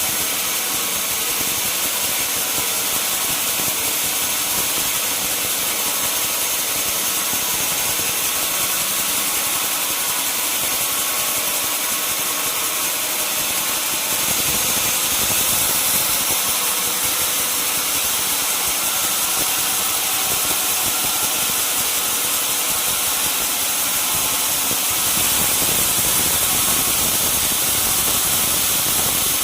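Sawmill saw running steadily, a loud continuous machine noise with a high steady whine. It grows a little louder about halfway through and again near the end.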